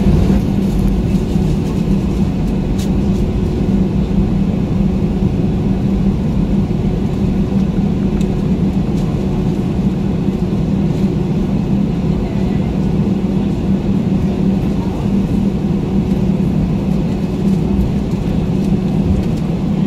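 Steady cabin noise inside an Airbus A320-200, a constant low hum from its CFM engines running evenly as the aircraft waits before the takeoff roll, with a faint click or two.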